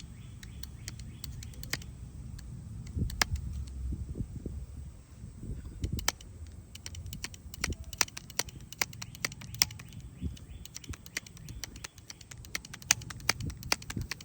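Harbor Freight hand-pumped hydraulic wire crimper worked to crimp a battery cable terminal: many sharp, irregular clicks and taps of metal handles and fittings over a low rumble.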